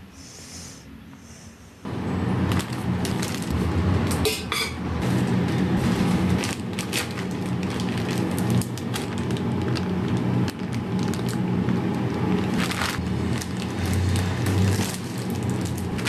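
Plastic zip-lock freezer bags crinkling and rustling with many small crackles as hands handle bags of green beans and press one flat. It starts suddenly about two seconds in, after a quieter opening.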